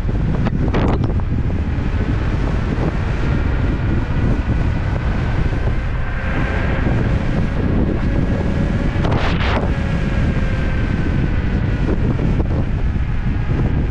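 Heavy wind rushing over a GoPro's microphone on an electric scooter riding at speed, with a faint steady whine underneath and a short burst of noise about nine seconds in.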